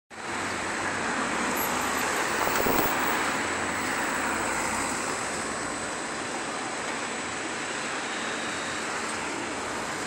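Concrete mixer truck's diesel engine running steadily, mixed with road-traffic noise, with a brief knock about two and a half seconds in.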